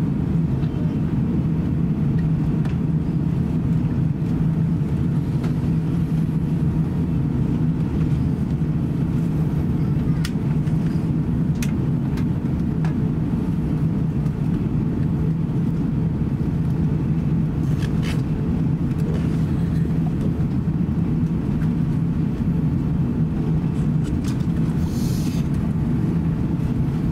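Cabin noise inside an Airbus A350-900 taxiing: a steady low rumble from its Rolls-Royce Trent XWB engines at taxi power and the rolling airframe. A few faint clicks come through, and a brief hiss near the end.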